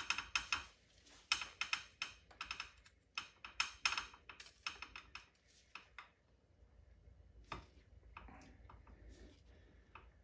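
Light metallic clicking from a Delica L300 rear differential as its ring and pinion gears are turned by hand, with an aluminum bar pressed against the ring gear for drag; this rolls the grease-painted teeth through mesh for a contact-pattern test. The clicks come in a quick, uneven run and thin to scattered ticks after about six seconds.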